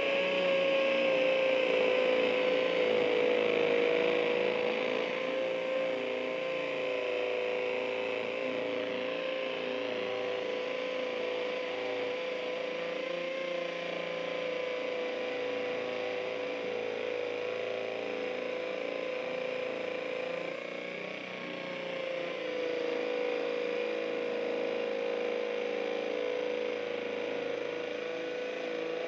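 Hilti SF 6H-A22 cordless hammer drill running steadily in hammer mode on speed 2, boring a masonry bit into a concrete block. A steady motor whine over the hammering rattle, a little louder in the first few seconds.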